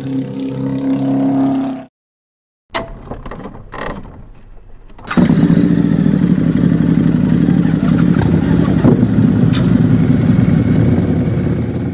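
A motorcycle engine running loudly and steadily from about five seconds in, with a fine rapid pulsing. Before it, a steady tone cuts off just before two seconds, followed by a brief silence and scattered clicks and clatter.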